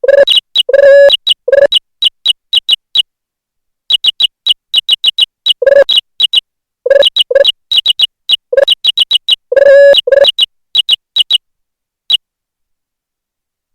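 Short synthetic blip sound effects from keyboard-sound software, one triggered per keystroke or click, coming in quick irregular runs. There are two kinds, a high chirp and a lower tone. They stop about twelve seconds in.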